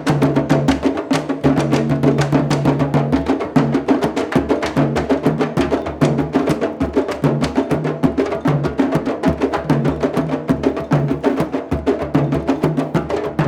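Candombe drums played together, freshly tuned over a fire: a fast, dense run of hand and stick strikes on the drumheads, with the click of sticks hitting the wooden shells and the low ring of the deeper drums under it.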